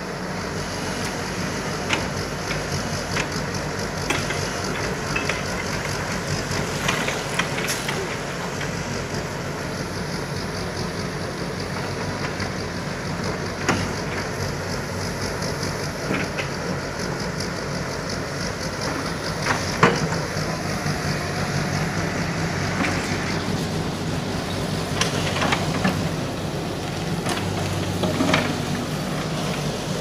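JG100S wheeled mini excavator's diesel engine running steadily under working load, with scattered knocks, scrapes and clatter from the bucket digging into dirt and brush debris.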